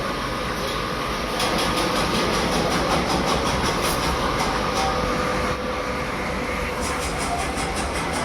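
Workshop machinery running steadily, with a fast, even clatter of ticks from about a second in.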